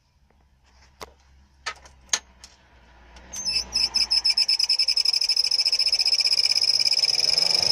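Volkswagen LT28 heater blower motor, defective, squealing: after a few sharp clicks, a loud high-pitched squeak starts about three seconds in and keeps going in rapid, even pulses.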